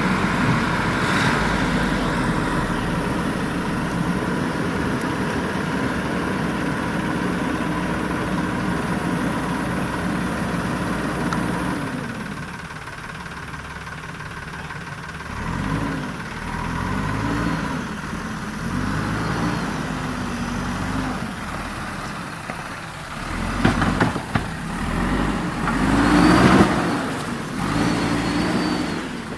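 Heavy diesel machine engine running steadily, then dropping off about twelve seconds in and revving up and down repeatedly, with the loudest revs near the end.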